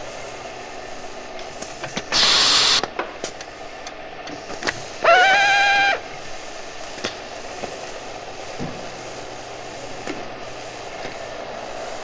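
Electric hand drill: a short, harsh burst of hissing noise about two seconds in, then the motor spinning up with a quickly rising whine that holds for about a second and stops. Between them is a steady low background noise with scattered small clicks.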